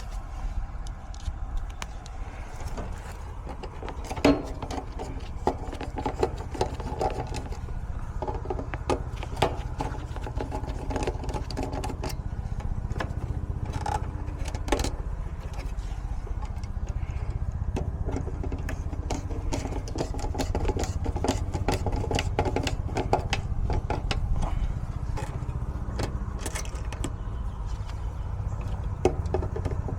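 Air-conditioning condensing unit running with a steady low hum that grows a little stronger in the second half, its contactor pushed in by hand to get the stalled unit started. Scattered metallic clicks and clinks of tools and parts being handled sound over it.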